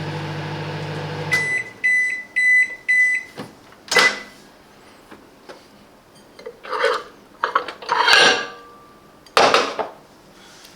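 Silvercrest SMWC 700 D1 microwave oven humming as it runs, stopping about a second and a half in, followed by four short high beeps marking the end of the cooking cycle. Then come a sharp click and several clattering knocks as the door is opened and the dish is handled.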